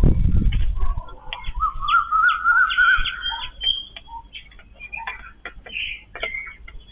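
Yellow-billed babblers chattering: a run of short squeaky chirps, with a wavering call lasting about two seconds from about a second and a half in. A low rumble at the very start dies away within a second.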